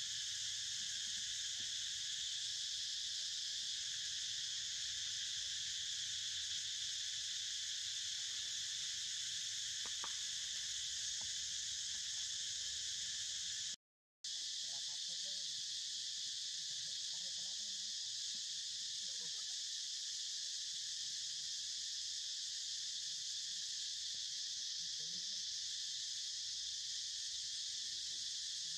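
Steady, high-pitched insect chorus of crickets or cicadas, a continuous shrill hum that cuts out for a split second about halfway through.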